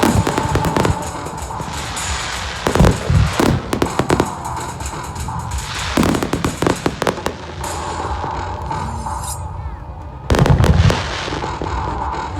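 Aerial fireworks bursting in clusters of sharp bangs and crackles, four volleys in all, the loudest about ten seconds in.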